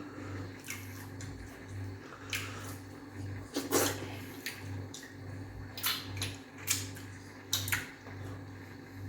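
Wet mouth sounds of eating fufu with okra soup: a string of lip smacks and slurps, the loudest a little under four seconds in, over a faint low hum that pulses on and off.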